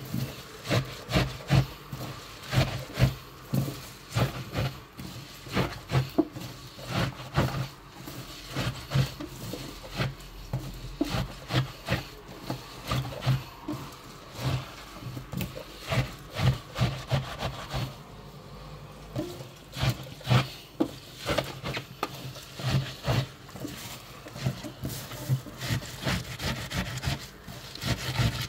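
Shredded wild garlic (ramsons) shoots being kneaded and squeezed by hand with salt against a stainless-steel sink, the salting step before lacto-fermentation. Wet squelching and rubbing in a steady rhythm of about two squeezes a second.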